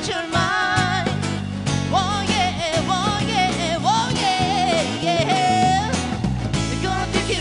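A band performing a song live: a lead singer's melody over the band's guitar and rhythm backing.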